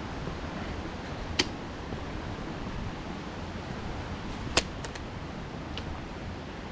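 Steady rushing outdoor noise on a hiking trail, with a few sharp clicks: two louder ones about a second and a half in and near the middle, and fainter ones after.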